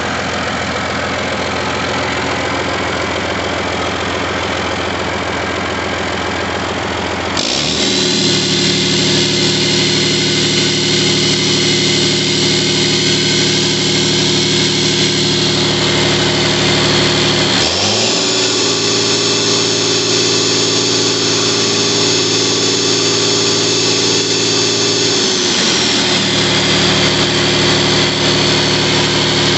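John Deere 9.0 L PowerTech Tier III six-cylinder diesel engine running on a test stand: idling, then stepping up to a higher speed about seven seconds in, rising again with a high whine about eighteen seconds in, and easing back down near the end.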